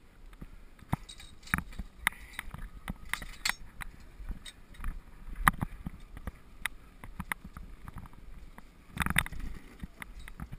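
Irregular clicks and knocks from a wooden dog sled and its gear rattling as it is moved over snow, with a cluster of louder knocks about nine seconds in.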